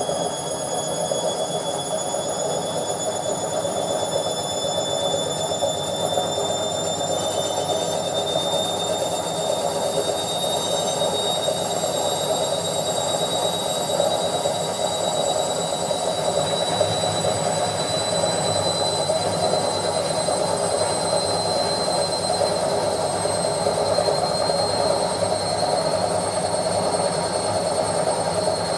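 Washing machine in its spin cycle: a steady whirring with a high whine that slowly rises in pitch.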